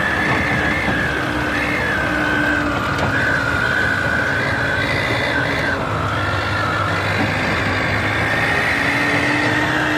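Diesel farm tractor engines running under load, with a high whine that wavers in pitch and sags lower a few seconds in before climbing back.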